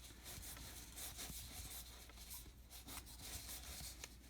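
Faint rubbing and light clicks of trading cards sliding against one another as a stack of baseball cards is leafed through by hand.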